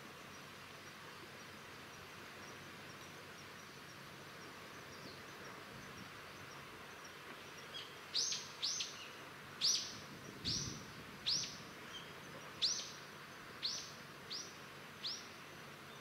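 A bird calling from about halfway through: a series of about ten sharp, quickly falling notes, roughly one every 0.7 seconds, over a faint steady background hiss.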